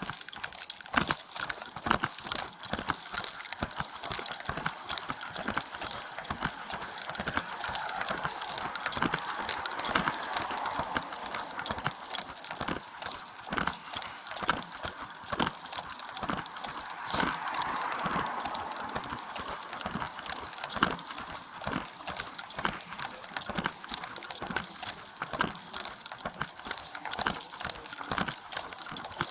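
A steady run of small clicks and knocks, a few a second, over a faint hiss.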